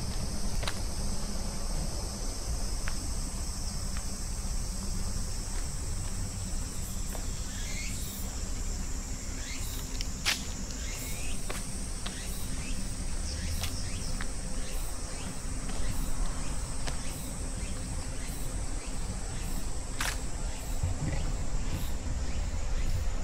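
A steady, high-pitched chorus of singing insects, with a low rumble underneath and scattered clicks.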